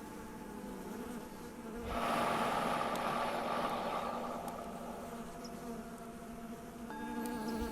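Bees buzzing in a lavender field, one passing close for a couple of seconds about two seconds in. Under it a Tibetan singing bowl rings on in steady tones and is struck again near the end, marking the next breath.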